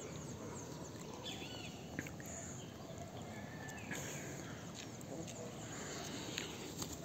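Faint outdoor background with a few soft chirps and a few light clicks.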